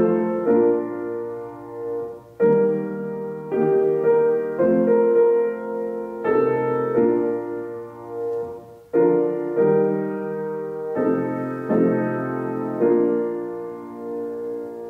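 Piano music: slow chords, each struck and left to ring, growing quieter toward the end.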